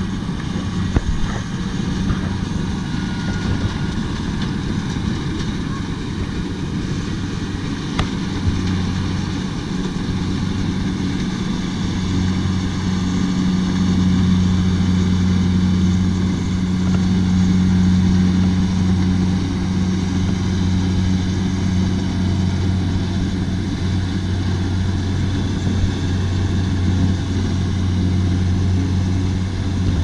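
Kubota DC70 combine harvester's diesel engine running steadily while harvesting rice, a continuous low droning hum that swells slightly midway.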